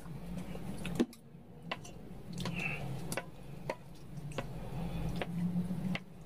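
Chopsticks stirring noodles in a stainless steel pot of cold soy milk broth: a soft wet churning, with light clicks of the sticks against the pot every second or so, the sharpest about a second in.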